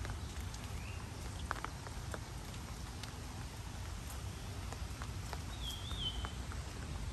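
Rain pattering and dripping on leaves and a wet path, with scattered single drops. A bird gives a faint chirp about a second in and a short warbling whistle that dips in pitch about five and a half seconds in.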